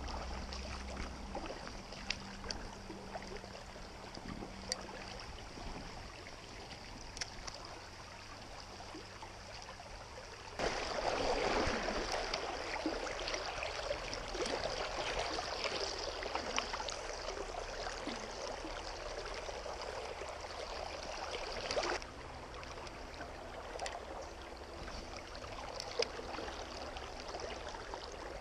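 Shallow river water running steadily over stones. It gets louder abruptly about ten seconds in and drops back abruptly a little before the end. A few faint clicks sound here and there.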